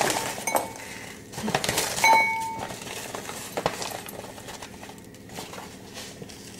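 Light clinks against a glass mixing bowl, the strongest about two seconds in, ringing briefly, among softer rustling and handling of a bag of hardened icing sugar.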